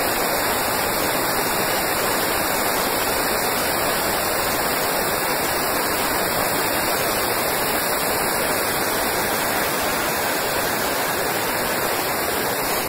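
Steady, even hiss like static, with no machine rhythm or motor tone in it.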